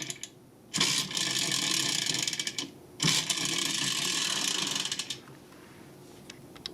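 Plastic toy's spinning rescue drill gimmick, its gears rattling and ratcheting in two runs of about two seconds each.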